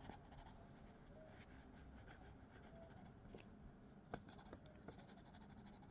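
Near silence, with faint strokes of a colouring pen on paper and a few light ticks, the clearest about four seconds in.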